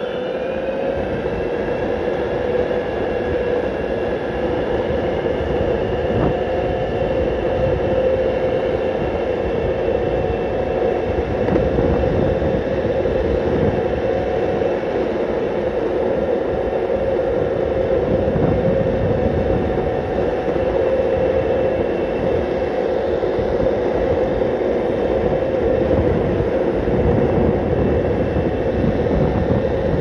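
Boosted Mini X electric skateboard riding at speed: the electric motor's whine rises a little in pitch in the first second, then holds steady over a continuous rumble of the wheels on the road.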